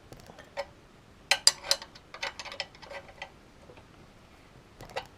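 Irregular light metallic clicks and clinks of a spanner turning a bolt, the sharpest few coming close together about a second and a half in.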